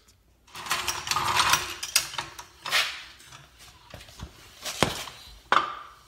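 A wooden board being handled and set on a floor jack's saddle: irregular knocks and scraping, then a few separate sharp knocks near the end.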